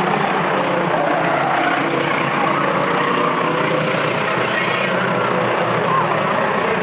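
A pack of short-track racing truck engines running at speed together, a steady loud drone of several overlapping engine notes wavering in pitch.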